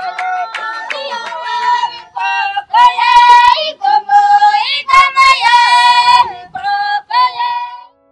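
San (Bushman) women singing a high-pitched, repeated chant for a traditional dance, with a few sharp hand claps. The singing stops just before the end.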